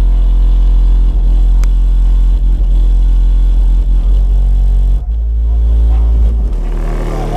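AmericanBass XFL 12-inch car subwoofer playing deep, loud bass music, heard from outside the Jeep it is mounted in. The bass note shifts about five seconds in.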